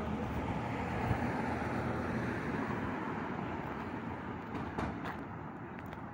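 Road traffic: a passing car's noise swells and slowly fades away, with a few light taps near the end.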